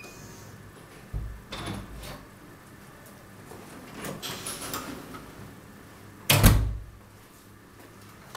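Apartment front door with an electronic keypad lock: a short electronic beep right at the start, a low knock and scuffing as the door opens, rustling, then the door shutting with a loud thud about six seconds in.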